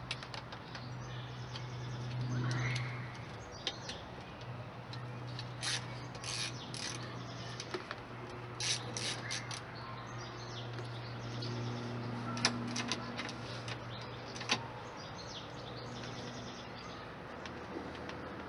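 Hands working at the rear of a motorcycle, taking parts off: scattered light clicks and rattles, bunched twice in the middle, then two sharp knocks, over a steady low hum.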